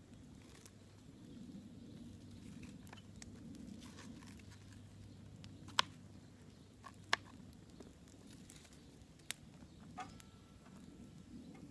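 Open wood campfire burning with a low steady rumble and a few sharp crackling pops, four of them in the second half.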